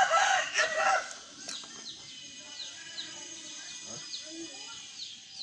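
A baby's loud, high-pitched babbling vocalisation in about the first second. Then birds chirp steadily in the background: short, high, falling chirps repeated a few times a second.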